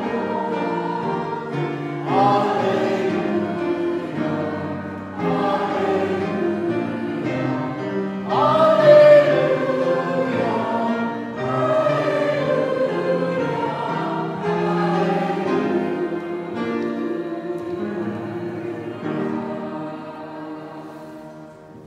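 Congregation singing a hymn in phrases over sustained held notes, dying away near the end as the hymn closes.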